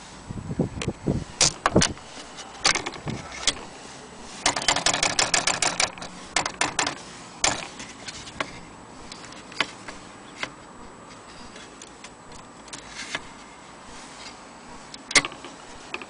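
Corona Standard manual typewriter clicking and clacking as its keys and mechanism are worked: scattered single clacks, and a quick run of rapid clicks about five seconds in.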